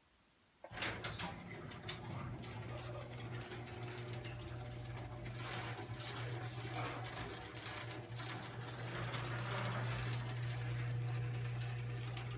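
Chamberlain half-horsepower chain-drive garage door opener closing the door. The motor starts abruptly under a second in and runs with a steady low hum, along with rattling and clicking.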